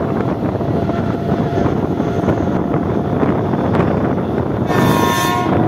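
Mumbai suburban electric local train running at speed, heard from its open doorway: a steady rumble of wheels on rail mixed with wind buffeting the microphone. Near the end a train horn sounds once, briefly.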